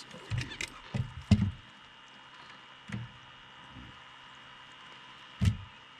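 Handling noise in a fishing boat as a crappie is swung aboard and grabbed: a few scattered knocks and thumps, the loudest about a second in and again near the end.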